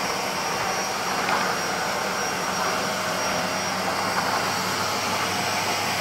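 Vacuum cleaner running steadily on a rug: a constant rushing of air with a thin, steady high whine from the motor.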